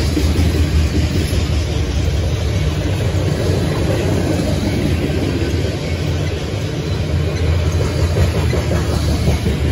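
Covered hopper cars of a freight train rolling past, their steel wheels on the rails making a loud, steady rumble.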